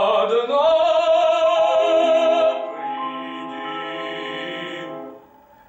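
Classical-style singing of a romance: a voice holds a long note with vibrato, then softer steady tones carry on and die away near the end.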